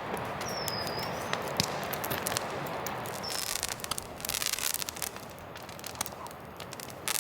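Scattered crackling and sharp clicks over a steady hiss, the crackles thickening about four seconds in.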